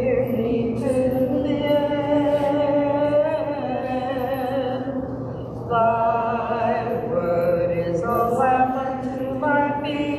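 Hymn sung a cappella, with no piano, in long held phrases and a short break about six seconds in.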